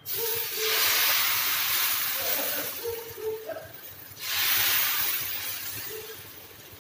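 Thin neer dosa batter of raw rice and coconut sizzling as it is poured onto a very hot dosa griddle. It comes in two loud surges, one at the start and another about four seconds in, and each slowly dies down.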